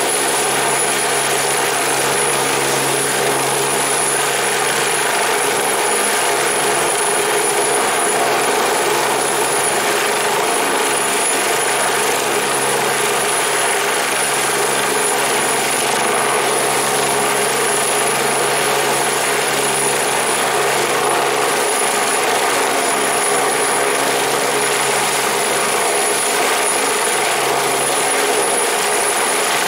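Agusta A109 rescue helicopter hovering close by: its twin turbines and rotor run steadily, with a thin high whine on top. The sound neither rises nor falls.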